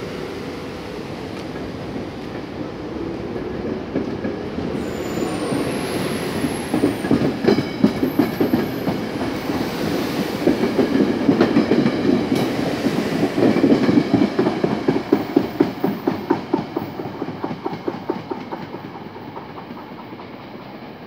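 SEPTA Silverliner IV electric multiple-unit train pulling out and accelerating past, its traction motors giving a whine that rises in pitch over the first few seconds. Then comes a rapid clickety-clack of wheels over rail joints, loudest past the middle, fading near the end as the last car goes by.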